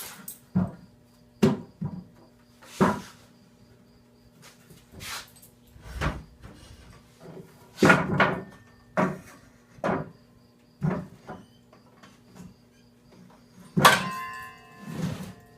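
Irregular knocks and clunks, roughly one a second, as wood and tools are handled in a workshop, with a louder clatter that rings briefly near the end.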